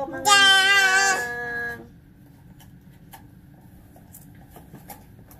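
One drawn-out, high-pitched vocal cry, held for about a second and a half with a slight waver, followed by a few faint clicks.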